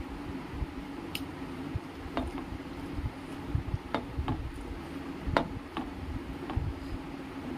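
Fingers mixing rice on a metal plate. Sharp clicks come about six times at uneven intervals as fingers strike the plate, over a steady low hum.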